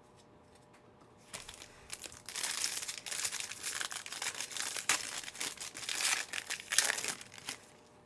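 A Panini Mosaic football card pack's wrapper being torn open and crinkled by hand: a dense run of crackling starting about a second in and stopping shortly before the end.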